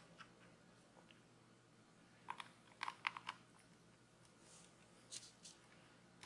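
Faint clicks and taps of plastic screen-protector installation-kit parts being handled and fitted together: a quick cluster of about five clicks a couple of seconds in, then a few lighter ones near the end, over near silence.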